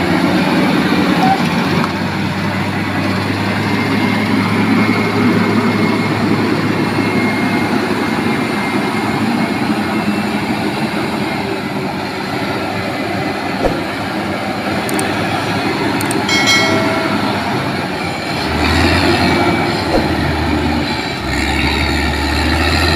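Caterpillar motor grader's diesel engine running steadily as the machine works through mud, with a few metallic clanks about two-thirds through and a louder, deeper engine note near the end.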